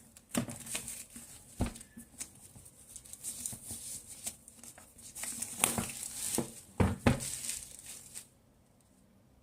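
Keyboard packaging being handled and opened: irregular crinkling and rustling with a few sharp knocks, stopping about eight seconds in.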